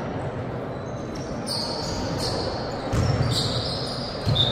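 Basketball bouncing on an indoor court during play, with shoes squeaking on the floor. The heaviest thuds come about three seconds in and again near the end.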